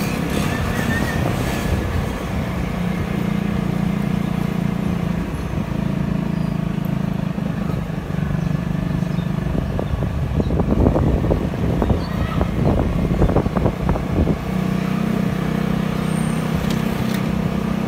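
Small motor scooter riding along at a steady speed: a steady engine hum with road and wind noise, and a few seconds of irregular thumps and rumble a little past the middle.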